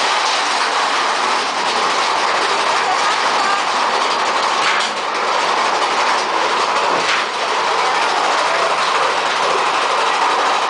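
Big Thunder Mountain mine-train roller coaster cars running along the track, a steady loud rattle and rumble heard from a seat in the train, with a couple of sharper clacks about five and seven seconds in.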